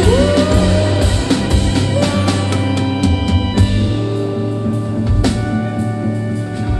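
A live rock band plays an instrumental passage on electric guitars, bass, keyboard and drum kit, with a note sliding up right at the start. The kick-heavy drumming thins out about four seconds in while the held guitar and keyboard notes carry on.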